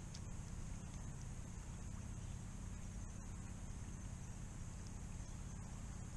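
Steady, high-pitched insect chorus, with a low rumble underneath and a few faint clicks.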